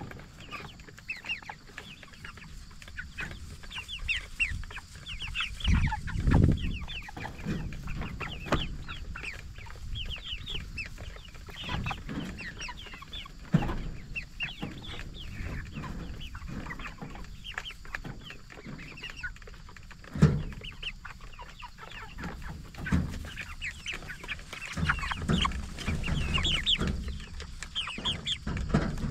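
A flock of Cornish Cross broiler chickens clucking and cheeping continuously with short, high chirps, with a couple of sharp knocks partway through.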